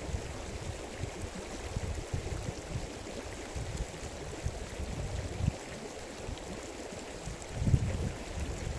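Steady rushing noise of a running stream, with uneven low rumbles now and then, strongest about two-thirds of the way through and again near the end.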